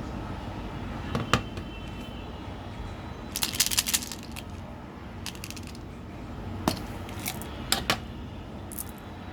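Small hard objects clicking and rattling in a few short bursts, the busiest a quick cluster of clicks about three and a half seconds in, over a steady low background rumble.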